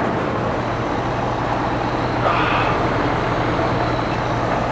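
Amana Distinctions heat pump outdoor unit running in heat mode: a steady low hum under an even rushing noise.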